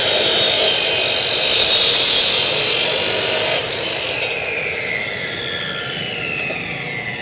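DEKTON DK355 2800 W cut-off saw cutting through steel: a loud grinding hiss for about three and a half seconds that stops suddenly as the blade breaks through. After that the motor's whine falls steadily as the blade spins down.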